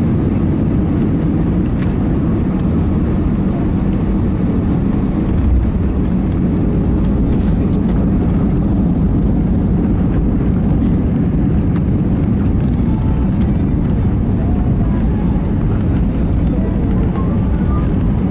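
Cabin noise in an Airbus A320 on its landing roll: a steady, loud low rumble of the engines and the wheels on the runway as the aircraft slows, with a slight swell about five seconds in.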